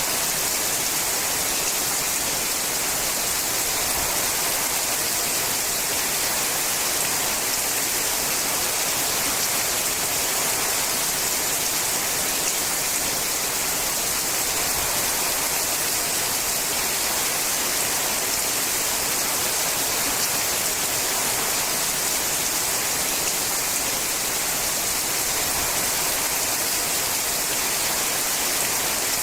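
Steady rain falling on a sheet-metal roof: a dense, even hiss that stays bright and high-pitched without letting up.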